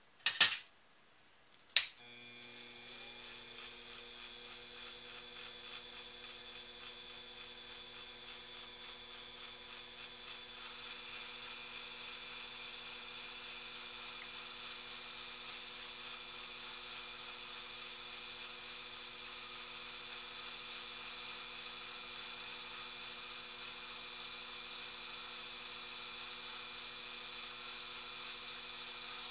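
Two sharp clicks, then a small benchtop metal lathe's electric motor starts and runs at a steady speed with a hum and a high whine. About ten seconds in the sound suddenly becomes louder, with a stronger whine, and stays steady.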